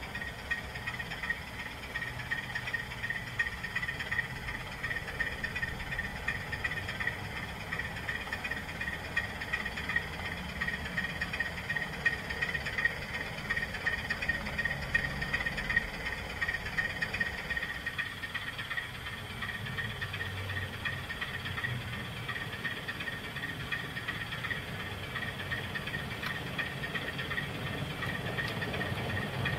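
Model train running on the layout: a steady whir and rumble of the small motor and wheels on the track, with a high, rapidly pulsing tone.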